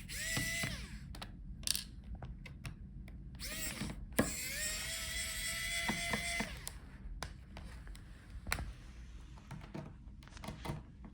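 Small electric screwdriver with a T5 Torx bit running in short runs, a steady whine that rises as the motor spins up, driving out the laptop's bottom-case screws: briefly at the start, briefly about 3.5 s in, then for about two seconds. Light clicks and taps of the tool and screws on the case between runs.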